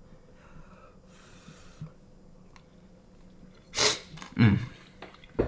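Quiet room tone, then about four seconds in three short, sharp puffs of breath in quick succession, the second the loudest and deepest.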